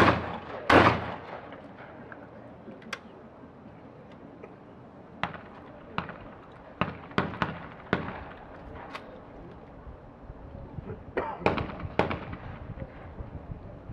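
Two 12-gauge shotgun shots less than a second apart, a pair fired at skeet doubles. Scattered fainter sharp clicks and knocks follow, with a small cluster near the end.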